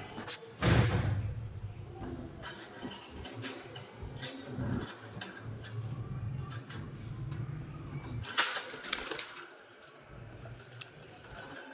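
Pet parrots flapping their wings: a loud rush of wingbeats about a second in and another about eight seconds in, with scattered small clicks and scratches in between over a steady low hum.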